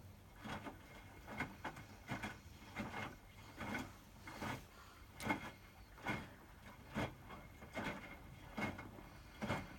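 Hotpoint WMFUG 942 washing machine drum turning during the wash, with the laundry and water sloshing and dropping in a steady rhythm of about one swish every second over the low hum of the machine.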